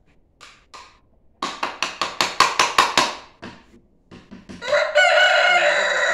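A chicken clucks in a quick run of about ten clucks, then a rooster crows one long call near the end.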